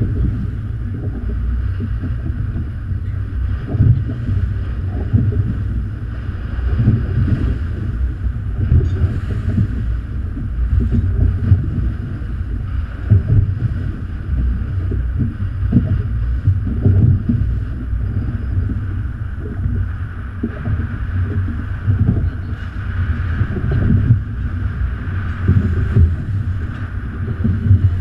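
Wind buffeting the microphone in uneven gusts over a steady rush of water from a boat moving through choppy waves.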